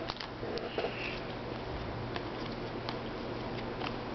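Trading cards handled and slid one past another through the hands, giving a few faint, light ticks and rustles over a steady low hum and hiss.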